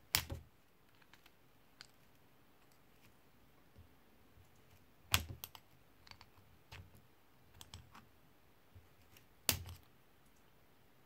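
Small screwdriver tip clicking and scraping against the steel sprocket and its spring retaining clip on a Sachs Torpedo 3-speed coaster brake hub as the clip is pried out of its groove. Three sharp metallic clicks, near the start, in the middle and near the end, with lighter ticks between.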